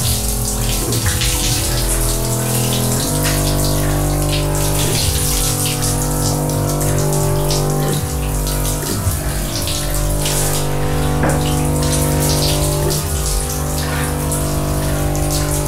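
A shower running, water spraying steadily onto a body and tiled floor, under slow music of long held chords that change every few seconds.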